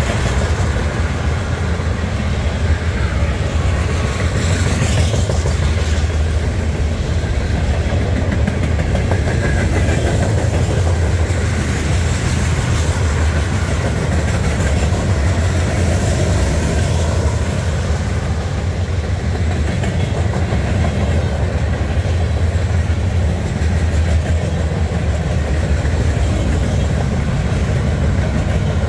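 Freight cars of a manifest train rolling past close by: a steady rumble of steel wheels on the rails, with clickety-clack.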